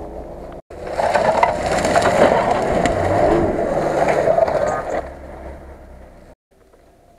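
Nissan Patrol on tractor tyres driving close past, its engine running under a loud, harsh crunching of dry grass and twigs crushed beneath the wheels. The noise starts about a second in and fades after about four seconds.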